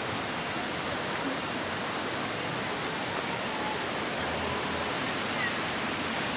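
Steady rush of a waterfall: an even hiss of falling water.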